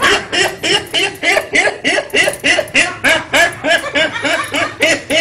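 A boy laughing hard in a long, rapid run of 'ha-ha' bursts, about four a second, each rising and falling in pitch.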